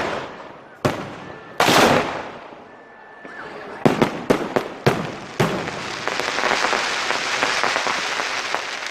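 Fireworks going off: a couple of loud bangs, then a quick cluster of sharp cracks about four seconds in, followed by a steady hissing crackle over the last three seconds.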